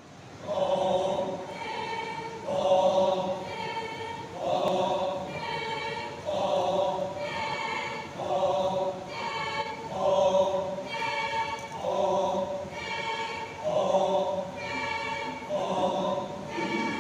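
Group of voices singing a Lotha Naga folk dance song together, a short chanted phrase repeated about once a second.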